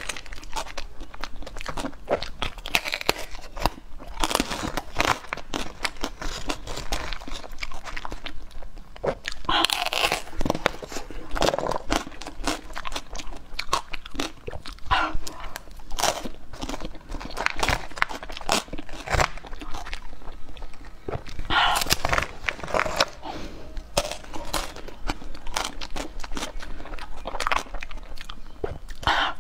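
Crunching, biting and chewing of pieces of a frozen, brightly coloured moulded treat: irregular crisp crackles and clicks, with a few louder crunches now and then.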